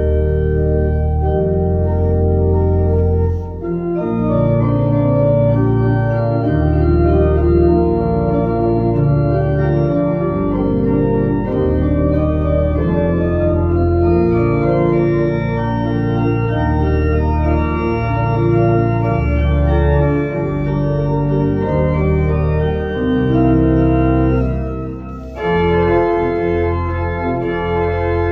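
Church organ playing a Motown pop medley: held chords over a bass line that steps from note to note every second or two, with short breaks about three seconds in and again near the end where a new phrase begins.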